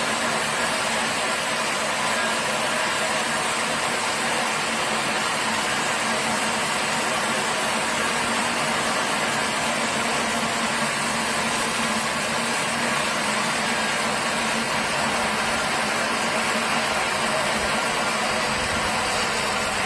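Sawmill machinery running, a steady mechanical noise that neither rises nor falls.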